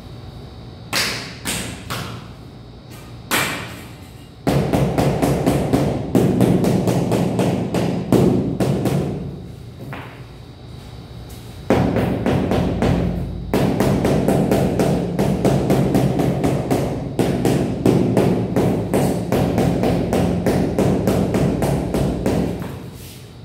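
Rubber mallet tapping a large ceramic floor tile to bed it down into the mortar and level it. A few single knocks, then two long runs of rapid, even tapping, about five blows a second, with a short pause about ten seconds in.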